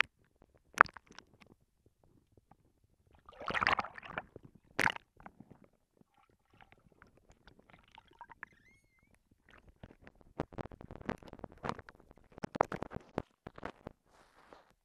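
Muffled underwater sound through a waterproof camera housing as a hooked bass thrashes near the lens: scattered sharp knocks and clicks with gurgling water. There is a louder rush of water about four seconds in, and a busier run of knocking from about ten to thirteen seconds in.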